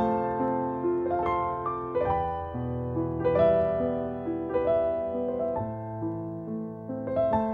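Background piano music: notes and chords struck about once or twice a second, each ringing on and overlapping the next.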